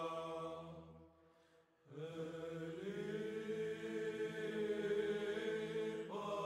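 Chanted vocal music: long held notes over a steady low drone. The chant fades out about a second in, and a new phrase starts about two seconds in.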